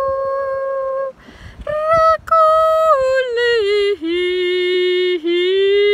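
A woman's voice singing wordless sustained notes: one held note, a short break, then a higher note that steps down in pitch to a low held tone and settles on a slightly higher long note.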